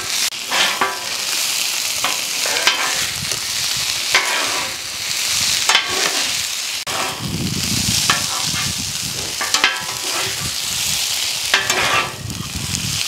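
Sliced onions sizzling in pork-fat grease on a Blackstone griddle's flat steel top, with a steady frying hiss. Metal spatulas scrape and clack against the griddle at irregular moments as the onions are tossed and chopped.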